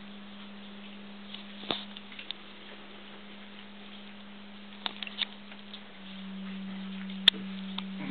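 A steady low hum that gets louder about six seconds in, with a few sharp clicks and taps scattered through it. The sharpest click comes about seven seconds in.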